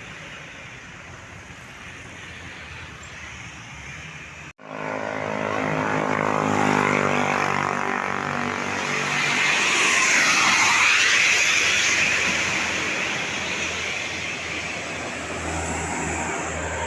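Large tour bus driving past close by: engine and tyre noise swell to a peak about ten seconds in and then fade as it moves away. Quieter traffic noise before a sudden cut about four and a half seconds in.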